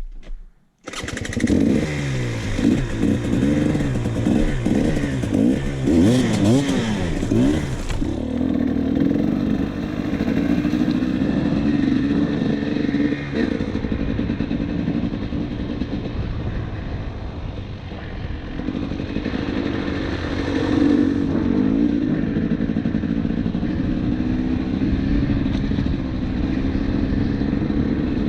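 KTM 300 TPI two-stroke single-cylinder dirt bike engine under way. The revs rise and fall repeatedly for the first several seconds, then hold a steadier pitch with another rise about twenty seconds in.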